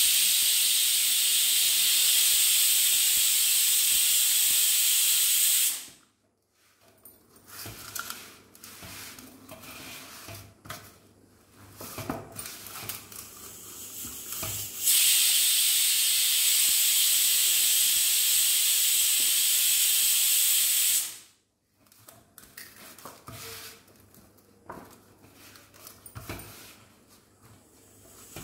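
Two long bursts of loud, steady hiss, about six seconds each, that start and stop abruptly. Between them, quieter scattered pats and rubbing of hands kneading rice-flour and maida dough in a steel plate.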